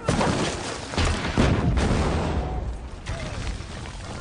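Artillery shells exploding close by in a barrage: a blast right at the start and several more about a second in, over a heavy low rumble that slowly dies away.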